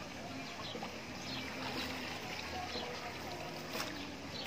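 Water trickling and lapping in a hot spring pool: a steady wash of sound with many small splashy ticks through it.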